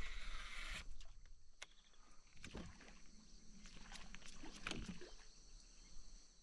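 Faint water and hull sounds from a small fishing boat: a short rush of noise at the start, then a few scattered light knocks.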